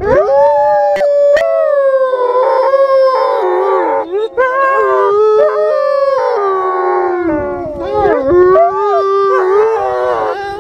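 Several wolves howling together in a chorus: long, overlapping howls at different pitches that rise and fall, with shorter wavering calls mixed in about eight seconds in.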